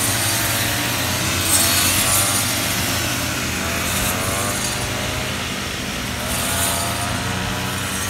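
Several small-engine brush cutters running under load, cutting rice stalks, their engine pitch rising and falling.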